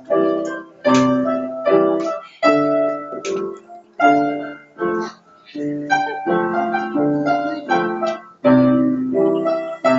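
Piano music: notes and chords struck at an even, unhurried pace, each ringing and dying away before the next.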